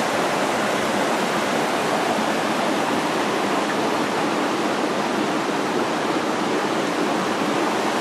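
Steady rush of a creek running through fresh mudslide deposits.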